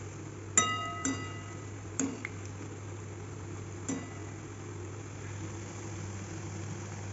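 Steel slotted skimmer clinking against the rim and sides of a steel kadai four times, each knock ringing briefly, the first the loudest, as pakoras are turned in hot oil. A steady low hum and soft hiss run underneath.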